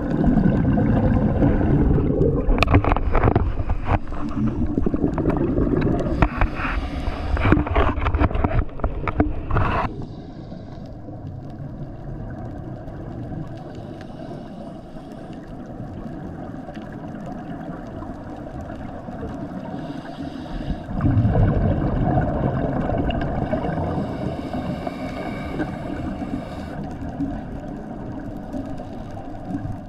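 Scuba regulator exhaust bubbles bubbling and crackling past an underwater camera. There are two long bursts, one lasting about ten seconds at the start and another starting about twenty seconds in, with a quieter steady underwater hiss between them.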